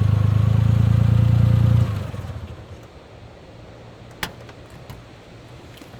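Car engine idling with a low, even pulse, switched off about two seconds in and dying away. A single sharp click comes a couple of seconds later.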